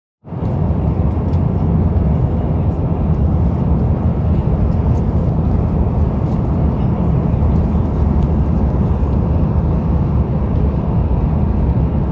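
Steady cabin roar of an Airbus A350-900 in flight, the mix of airflow and its Rolls-Royce Trent XWB engines, heard from inside the cabin at a window seat.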